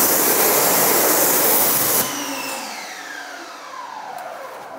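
Active 2.0 electric pressure washer spraying a jet of water through a white tip: a loud, steady hiss that cuts off sharply about two seconds in. After it stops, the machine winds down with a falling whine that fades away.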